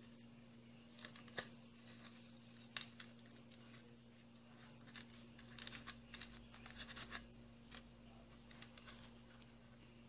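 Faint clicks and scratches of fingers working a needle and nylon fishing line through a small hole in a thin plastic bottle, thickest about five to seven seconds in, over a steady low hum.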